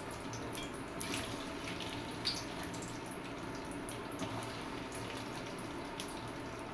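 Raw potato chips dropped a few at a time into a pan of oil that is not hot yet: soft splashes and light clicks over a steady wet bubbling hiss.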